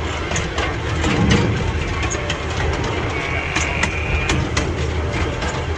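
Miniature train running along its track: a steady low engine rumble with scattered clicks and rattles from the moving cars. A thin, high squeal lasts about a second a little past the middle.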